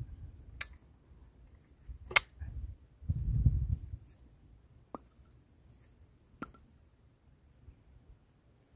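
Sharp metallic clicks from a double-barrel 12-bore shotgun being handled and broken open after firing: four separate clicks, the loudest about two seconds in. A short low rumble comes about three seconds in.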